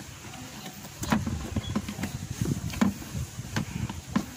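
Irregular plastic knocks and clunks from a car's air cleaner housing being handled and worked loose by hand, starting about a second in.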